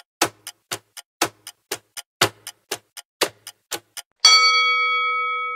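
Quiz countdown-timer sound effect: a clock ticking about four times a second, alternating louder and softer ticks, then a single bell-like ding about four seconds in that rings on and slowly fades as time runs out.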